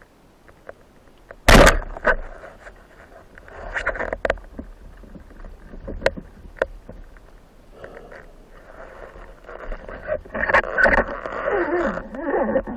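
Underwater sound picked up through a camera housing during a breath-hold spearfishing dive. A loud knock comes about a second and a half in, scattered clicks follow, and a rush of water noise builds near the end.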